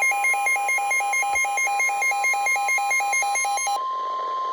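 Emergency alert tones: a steady high tone, the NOAA Weather Radio warning alarm, with a fast pulsing beep over it at about four or five a second. The beeping stops near the end, leaving the steady tone alone.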